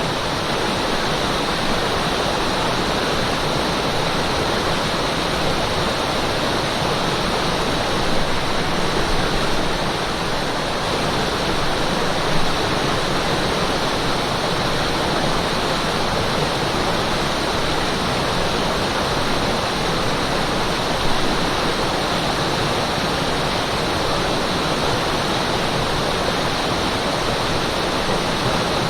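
Mountain stream's flowing water, a steady rushing sound.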